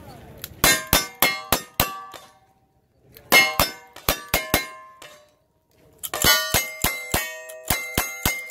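Single-action revolver shots at steel plate targets, each shot followed by the plate's ringing clang: five shots in about a second and a half, a short pause, then five more. About six seconds in, a faster string of rifle shots starts, each also ringing off steel.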